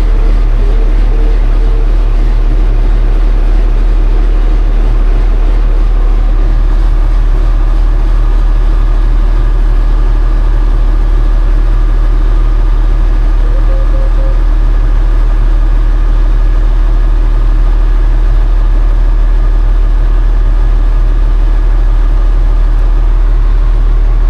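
Engine idling steadily just after being started, warming up ahead of an oil change.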